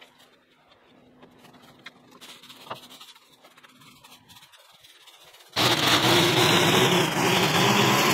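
Faint outdoor quiet with a few small ticks, then about five and a half seconds in a loud motor-driven power tool cuts in abruptly and runs steadily.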